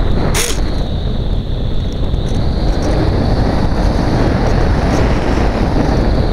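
Wind rushing loudly over the onboard camera's microphone as the Phoenix 2000 RC glider flies, with a faint steady high whine underneath and one sharp click just after the start.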